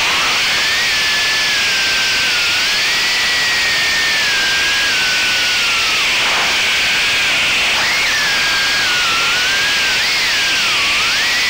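Brushless motors and three-blade props of a 3-inch FPV quadcopter running, a whine that wanders up and down in pitch with throttle over heavy propeller and wind hiss. The whine drops sharply a little past halfway and dips again near the end as the throttle is chopped and picked back up.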